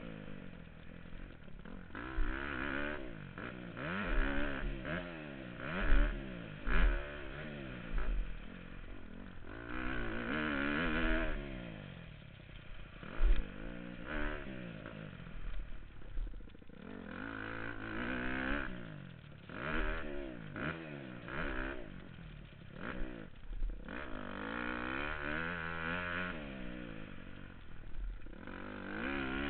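Dirt bike engine revving up and falling back again and again, pitch climbing and dropping every second or two as the bike is ridden over supercross jumps and berms, heard from a helmet-mounted camera. A few sharp low thumps stand out.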